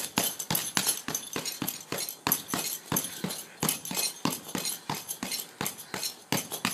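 A punching bag being struck in a rapid, irregular flurry of short blows, several a second.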